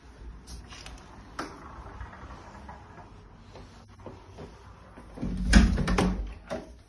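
A wooden interior door being opened: a cluster of clicks and a thud from the lever handle and latch about five and a half seconds in, the loudest sound, with lighter clicks and handling noise before it.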